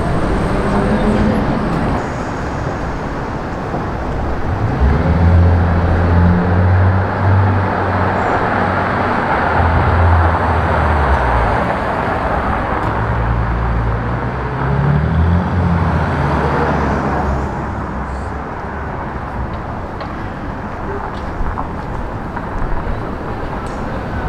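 Street traffic noise, with a nearby vehicle's engine running low from about five seconds in and stepping up and down in pitch until about seventeen seconds in.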